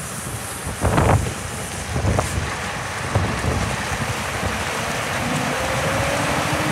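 A Scania R580 hooklift truck's V8 diesel running as the truck drives slowly past, with the hiss of its tyres on wet pavement. Wind buffets the microphone with a couple of thumps in the first two seconds, and a faint rising whine comes in near the end.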